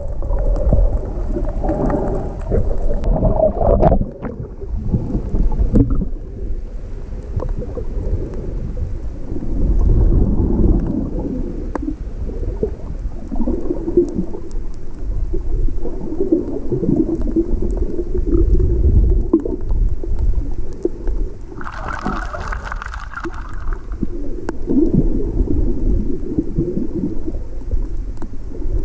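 Rough sea water churning and sloshing around the camera as a swimmer moves through the waves, heard as a muffled low rumble. Near the end comes a brighter splashing burst.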